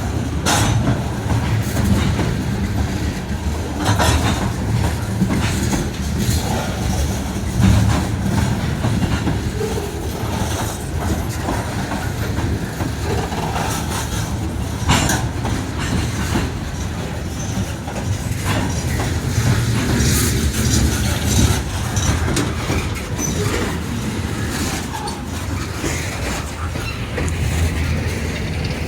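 Loaded coal train rolling past: a steady low rumble with irregular clicks and knocks from the wheels over the rail joints.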